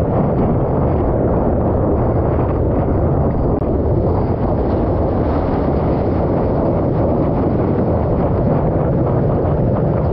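Steady wind buffeting a board-mounted action camera's microphone, mixed with water rushing and splashing past a stand-up paddleboard as it rides a wave.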